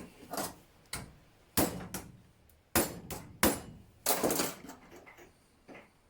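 A hammer striking a steel bracket made from a door hinge, reshaping it to adjust its width. Five or six sharp, irregularly spaced metal blows, each with a short ring.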